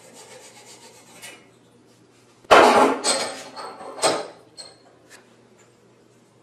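A few sudden metal clanks with a short ring, the loudest about two and a half seconds in, followed by a couple of lighter knocks. Faint rapid scraping strokes come before them.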